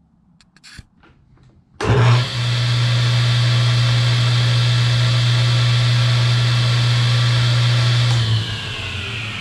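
Grizzly G0833P hybrid table saw switched on about two seconds in: its 230 V motor comes up to speed at once and runs free with a steady hum and whine. Near the end it is switched off, the hum stops, and the whine falls in pitch as the blade coasts down.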